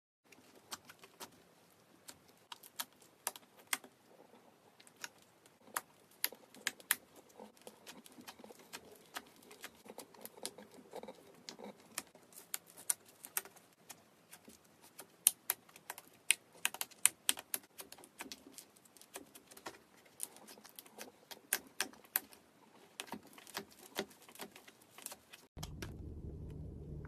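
Slime being squeezed and poked by hand, giving a run of quick, irregular sticky clicks and pops. Near the end it cuts off suddenly and a steady low hum takes over.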